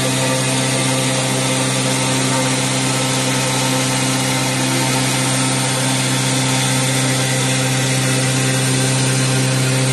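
CNC engraving machine's spindle running and cutting into a panel under water-jet coolant: a steady, even machine hum with a fixed low pitch and a hiss of grinding and spraying water.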